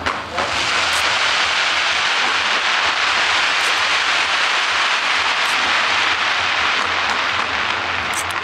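Fireworks barrage: a dense, steady crackling rush with a few sharper pops, about a second in, near the middle and a little later.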